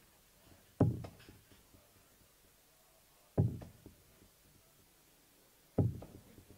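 Three steel-tip darts thudding one after another into a Winmau Blade 6 bristle dartboard, about two and a half seconds apart. Each hit is a sharp knock with a brief rattle just after.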